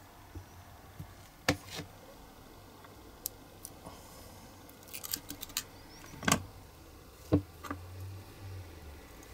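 Light metallic clicks and ticks of steel pliers gripping and bending a thin metal wire, with a quick run of small ticks about halfway through and two sharper clicks a little later.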